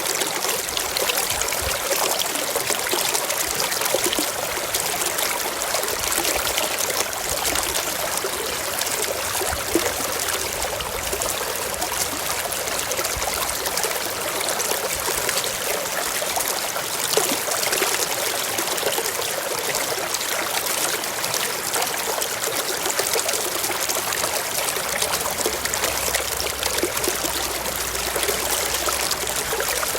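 Mountain stream flowing over rocks: a steady, continuous rush of water with small splashes and trickles.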